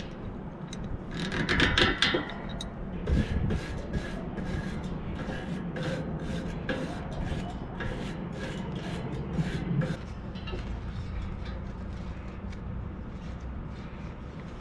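Hands rubbing and scraping along a bicycle wheel rim, pressing rim tape into place, in a quick run of strokes that stops about ten seconds in.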